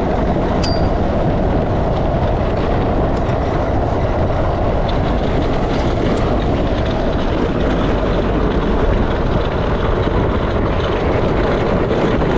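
Unpowered gravity kart rolling fast over loose slate gravel: its tyres and metal frame make a steady rumble and rattle, with a few sharp ticks.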